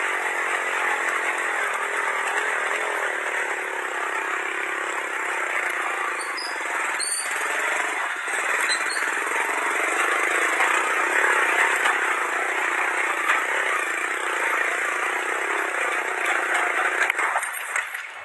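Motorcycle engine running as it climbs a steep dirt trail, then cutting out near the end: the bike stalls on the climb.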